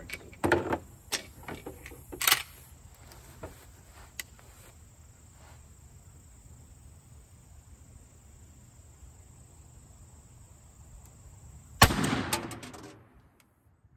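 A few short clicks and knocks of the shotgun being handled on the bench. About twelve seconds in comes a single loud shotgun blast from a Retay Masai Mara semi-automatic firing 00 buckshot, its report ringing away over about a second.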